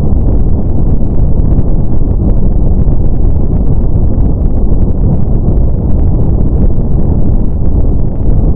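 Steady brown noise, loud and even, with its energy deep and low and little above about 1 kHz.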